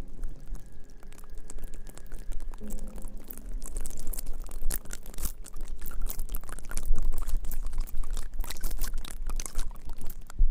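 Close-miked ASMR trigger sounds: a dense run of irregular crackles, clicks and brushing close to the microphone, with a faint hum in the first seconds.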